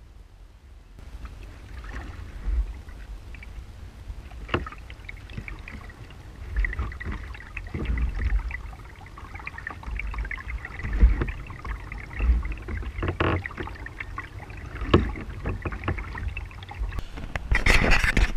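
Kayak paddle strokes in the water, with a splash or drip every second or two over a low rumble.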